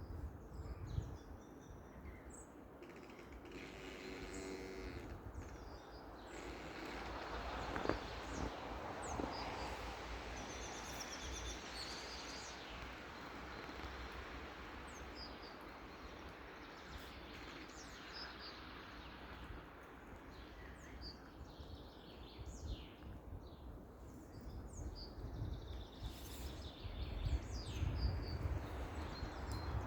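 Pine tree creaking as it sways, with a drawn-out creak a few seconds in, over wind noise and small birds chirping.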